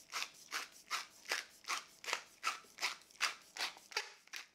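Wooden pepper mill grinding black peppercorns, twisted back and forth in a steady rhythm of about two to three grinding strokes a second.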